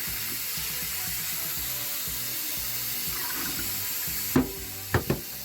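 Kitchen tap running water over rice in a strainer, shut off about four seconds in, followed by three sharp knocks.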